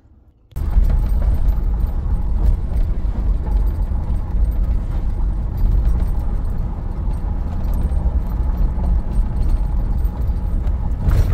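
Wind and road noise through the open window of a moving car: a loud, steady low rumble that starts abruptly about half a second in.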